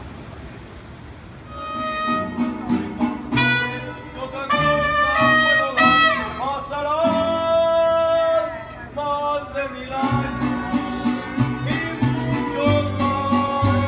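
A mariachi band playing live, with trumpets and violins over a steady bass beat. It starts about a second and a half in.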